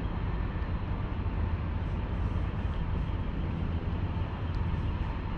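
Steady, low, fluttering rumble of wind buffeting the microphone outdoors.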